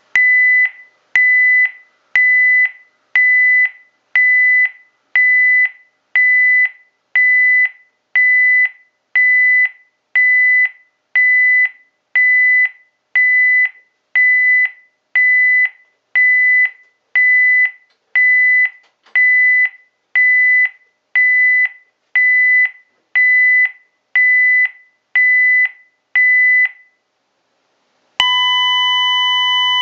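Honeywell LYNX Touch L7000 alarm panel sounding a steady series of sharp electronic beeps, a little more than one a second, after its "disarm system now" prompt: the entry-delay warning. Near the end the beeping stops, and after a short gap a loud continuous alarm tone starts as the alarm goes off.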